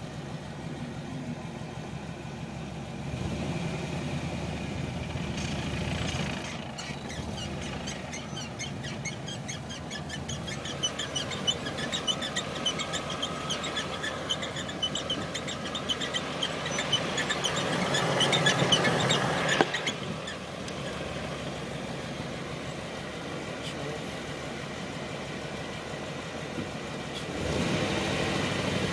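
1992 Camaro RS's 305 TBI V8 idling while a rapid, evenly repeated high-pitched squeak comes from the five-speed transmission's shifter boot, the noise that occurs in first gear as the clutch pedal is let off. The squeaking runs for about thirteen seconds, grows louder, then stops suddenly with a click. The engine gets louder near the end.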